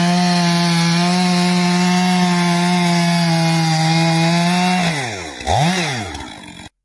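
Two-stroke chainsaw running at high, steady speed, cutting wood. About five seconds in the throttle is released and the engine speed falls, rises briefly once, falls again, and the sound cuts off suddenly.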